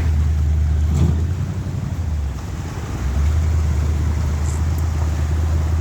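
Steady low rumble of an off-road vehicle's engine running, easing off a little past two seconds in and picking up again about a second later.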